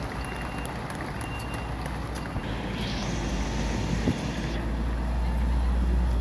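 Fire-service vehicle engines running as a fire engine and then a fire-service van drive past: a steady low drone that grows louder toward the end, with a hiss lasting about two seconds in the middle.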